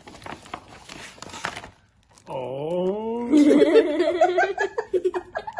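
Rustling and crackling of a paper gift bag and its wrapping as a present is pulled out, then, about two seconds in, a person's long rising exclamation that breaks into laughter.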